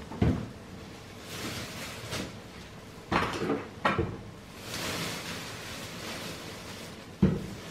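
Plastic toiletry bottles being set down one after another on a bathroom counter, four sharp knocks, with rustling of a plastic bag in between.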